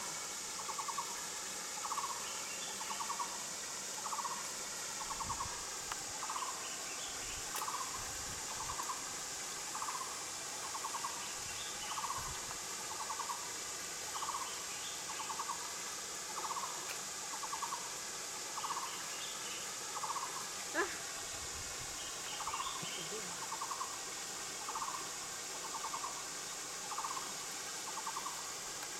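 A bird calling a short rolling note over and over, about twice a second, with a steady high hiss behind it. One brief sharp squeak comes about 21 seconds in.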